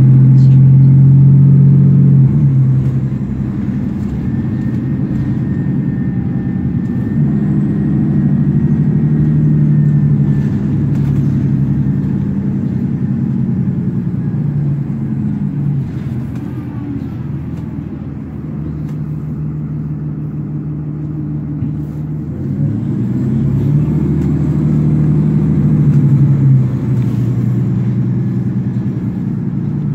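Cummins ISL diesel engine of a 2009 Nova Bus LFS, heard from inside the passenger cabin. Its note rises and falls in steps as the automatic transmission shifts while the bus pulls away and slows in traffic.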